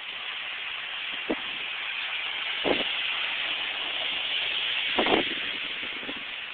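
Steady hiss of a storm front's wind and rain, growing a little louder until about five seconds in and then easing, with three short thumps about one, three and five seconds in.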